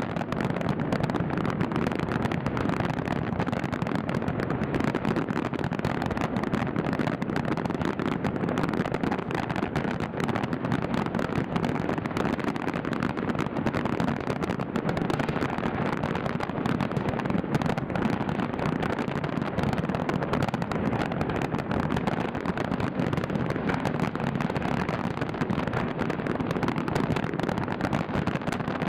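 Dense, continuous fireworks barrage: rapid bangs and crackles running together into an unbroken din, with no pause.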